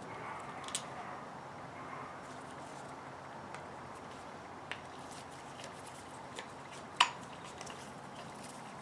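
Faint small metal clicks and scrapes of a screwdriver backing the float-bowl screws out of a Yamaha Warrior 350 carburetor, with one sharper click about seven seconds in, over a steady low hiss.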